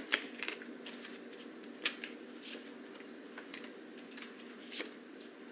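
Tarot cards being handled and laid out: scattered soft clicks and rustles of card on card, over a faint steady hum.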